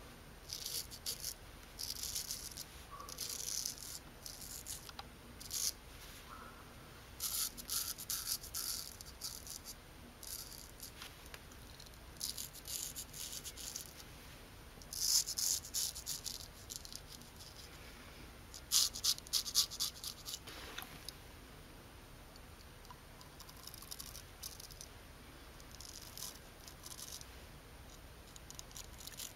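Straight razor scraping through lathered stubble in quick, short strokes, coming in runs with pauses between; the loudest runs fall around the middle, and the strokes grow fainter near the end.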